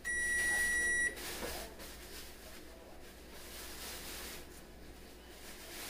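A single electronic beep: one steady high tone that lasts about a second and stops abruptly.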